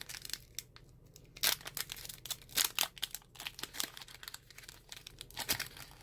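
Plastic and foil packaging of a Pokémon card pack crinkling and tearing as it is opened by hand, in irregular crackles with the sharpest about one and a half and two and a half seconds in.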